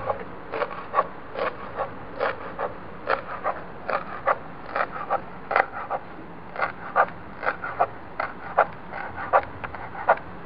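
Kitchen knife chopping fresh mint and coriander leaves on a plastic cutting board: quick, uneven knocks, about three a second.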